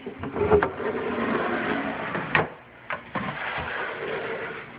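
Plastic tub in a snake rack scraping as it slides along its shelf, in two long slides with a few sharp knocks between.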